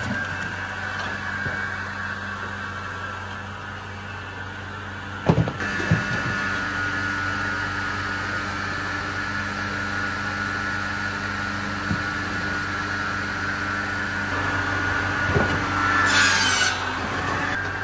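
Firewood processor running steadily, with knocks of wood about five seconds in, again a second later and near the end, then a brief loud burst of cutting noise.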